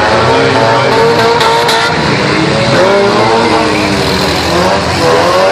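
Several demolition derby car engines running and revving together, their pitches wavering up and down.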